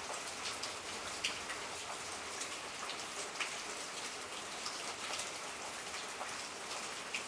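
Steady heavy rain falling during a night thunderstorm, with many individual drops ticking sharply close by.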